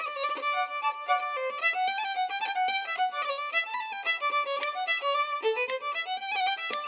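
Instrumental background music: a quick melody of short notes in a high register, with no bass.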